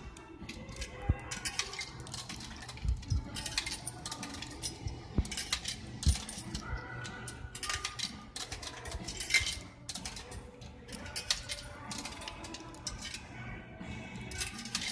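Coins clinking and dropping in a vending machine, with irregular clicks and small metallic clatters all through.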